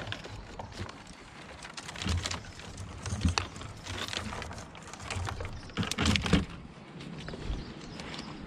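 Apple tree branches and twigs rustling, cracking and knocking as they are handled, in irregular bursts, loudest about six seconds in.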